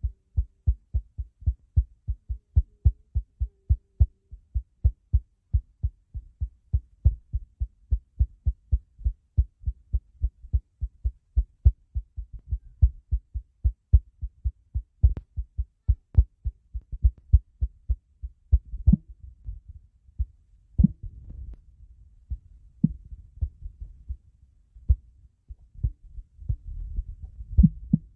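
A steady beat of deep, low thumps, about three a second, from the slideshow's background track; from about 18 s in, a low rumble fills the gaps between the thumps.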